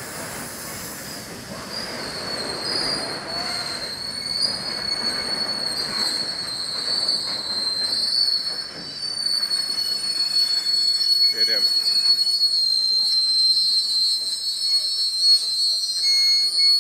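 Slow freight train of flat wagons rolling past, its wheels squealing steadily and high-pitched on the rails over the rumble of the wagons, growing louder as it goes.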